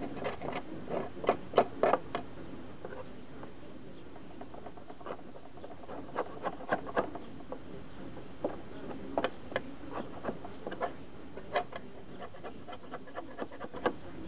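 Caked dead grass being scraped and picked off the underside of a lawn mower deck: irregular scratching and scraping with small sharp knocks. They come in a cluster in the first couple of seconds, ease off briefly, then come back scattered.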